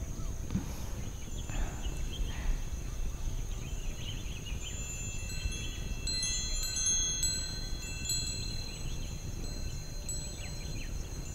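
Wind chime of small hanging bells tinkling, many overlapping ringing notes that are thickest through the middle of the stretch and thin out near the end.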